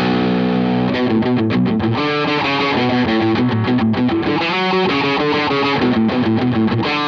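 Squier Paranormal Cabronita Baritone Telecaster played through a Jackson Audio Golden Boy overdrive with a compressor on. A chord rings for about the first second, then the player moves through a run of picked notes and chords.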